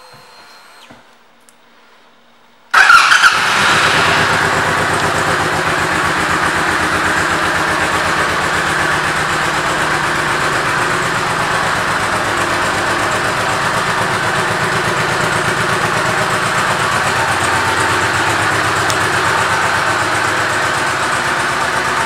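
Honda VTX 1800 Retro's 1,795 cc V-twin is started a little under three seconds in, catching at once, then idles steadily.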